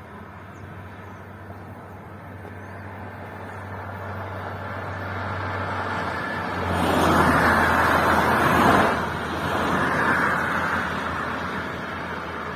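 A car approaching and passing, its engine and tyre noise building for several seconds to a peak about seven to nine seconds in, with a second, smaller swell just after, then fading.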